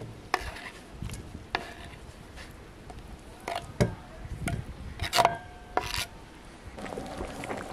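Kitchen knife scraping chopped cranberries off a wooden cutting board into an enamel bowl: scattered scrapes and knocks, with two sharper knocks about five and six seconds in that ring briefly.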